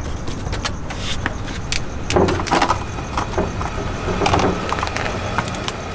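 Scuffing and gritty crunching, with scattered clicks, as two people push against a car by hand, over a steady low hum.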